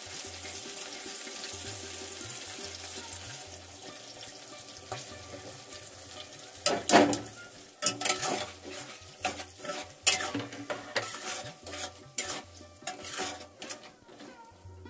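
Peas and tomatoes sizzling in hot oil in a metal kadai; from about six and a half seconds in, a spatula scrapes and knocks against the pan in quick irregular strokes as the vegetables are stirred, loudest near the start of the stirring.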